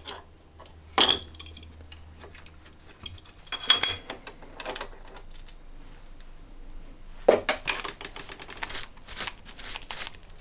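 Steel tools and clamp parts clinking on a milling machine's cast-iron table and rotary table as a clamp is undone and an adjustable spanner is set down, with two sharp ringing clinks about a second in and at about four seconds. From about seven seconds, a quick run of small clicks and rattles as a brush sweeps metal swarf off the rotary table.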